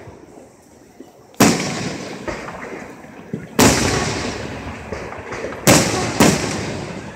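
Aerial fireworks shells bursting: four sharp booms, the first about a second and a half in, one near the middle and two close together near the end, each trailing off in a rumble with scattered crackles.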